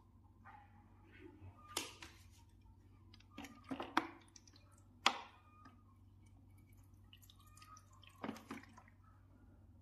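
Water dripping and splashing in the drain pan of a split air conditioner's indoor unit: a few separate drops and knocks, the loudest about four and five seconds in. The water is pooling there because the drain outlet sits too high for it to run out.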